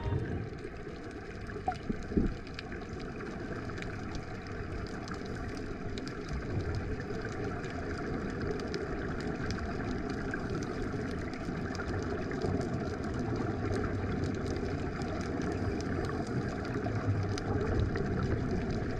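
Underwater sound: a steady rushing noise full of small scattered clicks, from air bubbles streaming up from the divers' helmets, with a couple of louder knocks about two seconds in.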